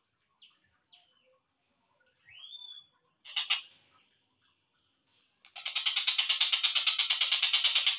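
Collared kingfisher (tengkek buto) calls on a slowed-down bird-training recording: a few short separate notes and one rising note, then from about five and a half seconds in a long, rapid run of loud repeated harsh notes.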